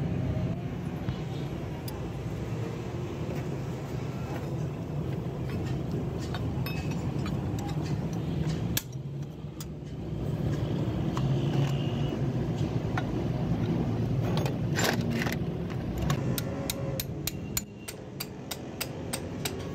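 Hammer striking a steel drift set into a Mazda 3500 gearbox case: a quick run of sharp metallic taps, about three to four a second, near the end. Before that, occasional light clinks of metal parts being handled, over a steady low background rumble.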